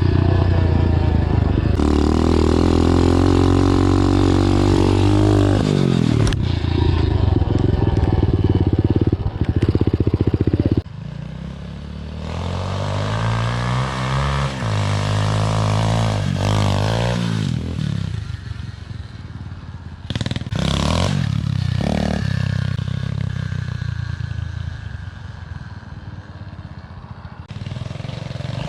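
Dirt bike engine running and revving, its pitch rising and falling through gear changes. It is close and loud for the first ten seconds or so, then quieter and farther off, with a few short knocks around twenty seconds in.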